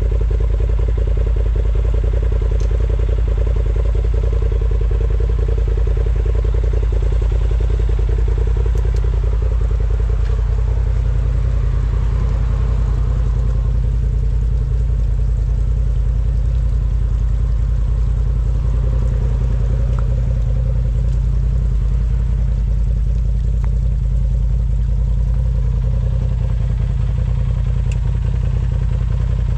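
Off-road vehicle engine running steadily at low revs, with a fast even firing pulse and some light clattering.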